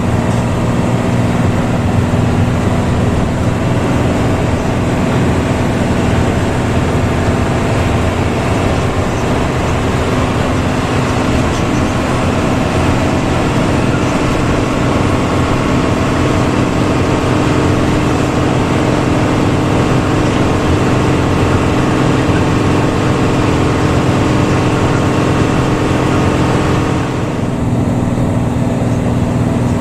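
Intercity bus engine running steadily under way, its growling ('ngorok') exhaust giving a deep, even drone. Near the end the sound briefly softens and then picks up again.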